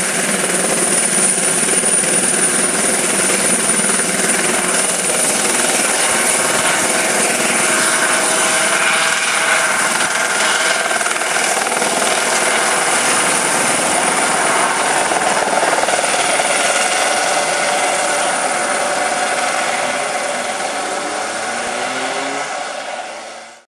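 Light helicopter running and lifting off: steady rotor and engine noise with a thin high whine over it. It fades near the end as the helicopter climbs away, then cuts off suddenly.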